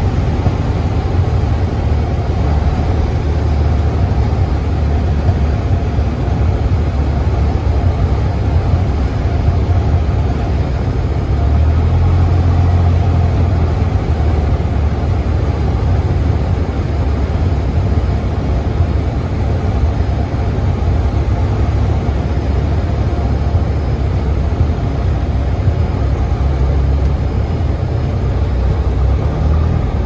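Light aircraft's engine and propeller droning steadily, heard from inside the cockpit during approach and landing. The low hum swells a little about twelve seconds in and again near the end.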